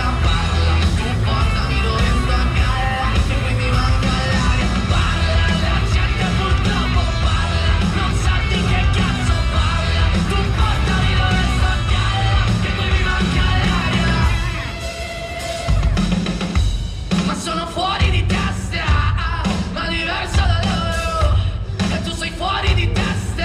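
Loud rock music with a driving drum beat. About fourteen seconds in it drops back, then carries on in stop-start hits with short breaks between them.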